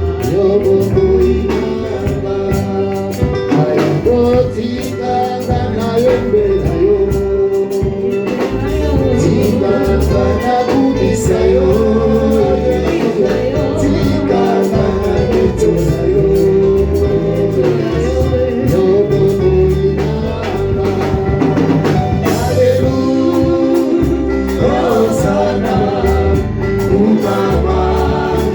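Live gospel worship music: voices singing a praise song over a band with drums, continuing without a break.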